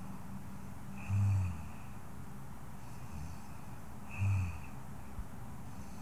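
Soft snoring by a woman asleep: two short, low snores about three seconds apart, one about a second in and one about four seconds in, over a faint steady hiss.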